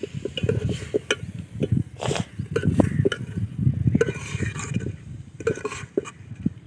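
Metal spoon stirring and scraping dal around a steel cooking pot, with many irregular clinks and knocks of the spoon against the pot. The soaked lentils are being fried dry in ghee and masala, with no water added.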